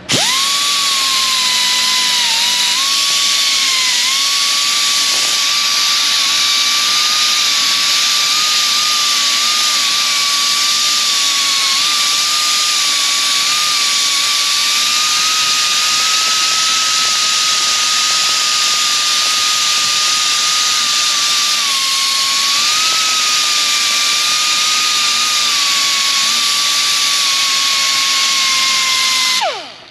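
Small handheld rotary grinder with an abrasive disc, running at speed with a steady high-pitched whine against a brake pad, its pitch dipping slightly as the disc bears on the pad. It is scuffing the pad's friction face and chamfering its edges and corners. The tool spins down with a falling whine near the end.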